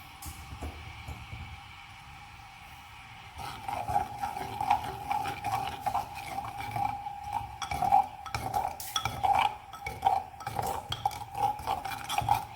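A spoon stirring milk tea in a clay pot, with repeated small clinks and scrapes against the pot's wall that start about three and a half seconds in and keep going, alongside a steady ringing tone. The tea is being stirred while it comes to the boil, so it does not boil over.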